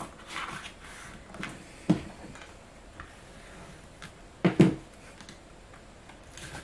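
Handling of cardstock and a clear acetate sheet on a cutting mat: light rustling and crinkling, with a few short knocks, the loudest a quick double knock about four and a half seconds in.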